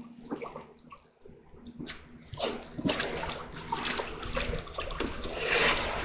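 Water from a hose spraying into and splashing off a plucked, gutted chicken carcass as it is rinsed out. The splashing is irregular and grows louder from about two seconds in, strongest near the end.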